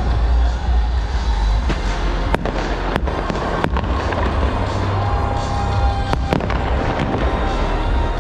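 Fireworks going off in a dense, steady rumble of launches and bursts. Several sharp cracks stand out between two and four seconds in and again around six seconds.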